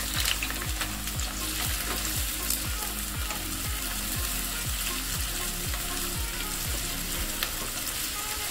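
Sliced onions sizzling in hot oil on high flame, freshly added to the kadhai and stirred with a spatula, a steady frying hiss.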